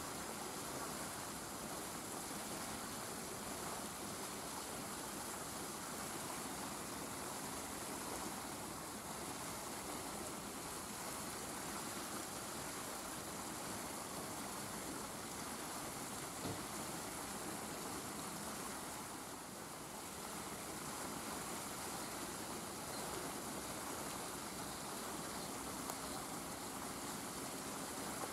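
Steady, even background hiss with no distinct sound events.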